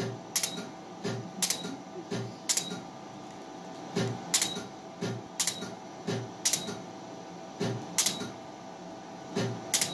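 Laser hair-removal handpiece firing pulses: sharp clicks, each with a dull thud, in uneven runs of about two a second, with a short pause about three seconds in. A steady hum runs underneath.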